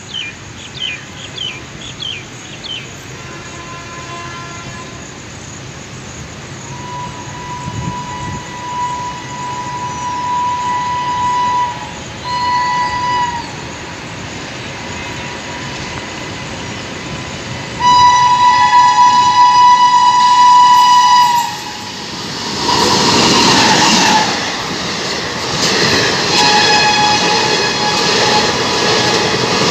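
Indian Railways express with ICF coaches approaching and passing at speed. Its locomotive horn sounds several times, swelling into a long, loud blast about two-thirds of the way in. The coaches then rush by with a rumble and clatter of wheels on rail, and the horn sounds once more near the end.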